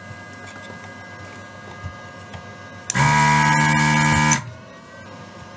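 An electric desoldering gun's vacuum pump buzzes steadily for about a second and a half, starting about three seconds in, sucking molten solder off a capacitor's joint on the circuit board. A faint steady hum lies underneath.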